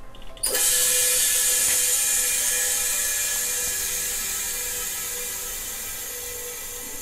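Pressurised CO2 hissing from the gas line into a small stainless steel keg. It starts suddenly about half a second in and slowly fades: the keg is being flushed with CO2 to drive out the air and keep the beer from oxidising.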